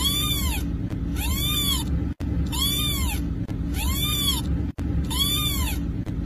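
Kitten meowing for help: five rising-and-falling meows about a second and a quarter apart, over a steady low rumble.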